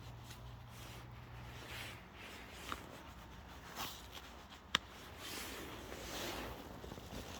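Small wood-pellet fire just lit inside a cast-iron wood stove, burning with a faint hiss and a few sharp crackling pops, one louder pop about halfway through.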